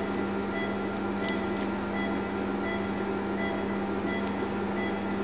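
Steady hum of operating-room equipment with short, faint high beeps about every 0.7 seconds, the regular pattern of an anaesthesia monitor beeping with the patient's pulse.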